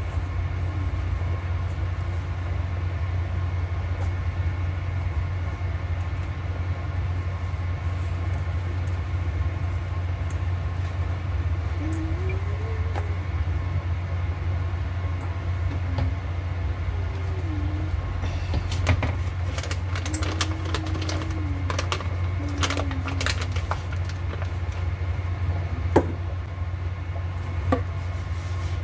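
A steady low hum, like a motor or appliance running, with several light knocks in the second half.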